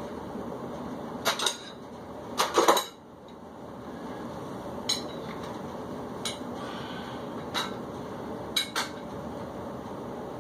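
Metal dumbbells clanking and clinking as they are picked up and handled: a cluster of loud clanks about two to three seconds in, then single knocks every second or so, over a steady background hum.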